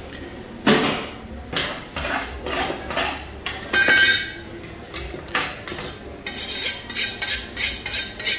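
Metal cutting tools (a cleaver, a knife and a sharpening steel) clinking and clattering against a cutting board. A loud knock comes about a second in, a brief metallic ring about four seconds in, and a quick run of short clinks and scrapes near the end.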